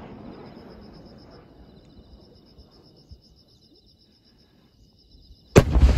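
A rumble from a large firework shell's report fades away, leaving crickets chirping in a rapid, steady high pulse. About five and a half seconds in, a 10-inch (shakudama) aerial shell bursts with a loud boom, followed by a rolling echo.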